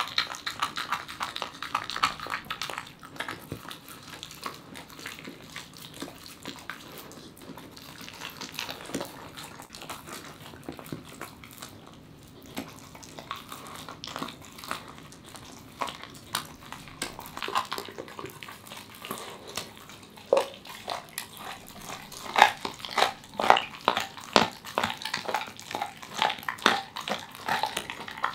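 A Welsh corgi chewing and gnawing raw chicken, with irregular clicking crunches that become quicker and louder in the last third.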